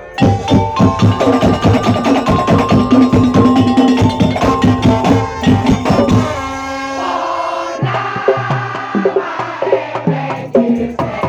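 Madurese ul daul percussion music: rapid, dense strokes of wooden percussion and drums. About six seconds in it gives way briefly to a held note, then returns as a lighter beat with a melody over it.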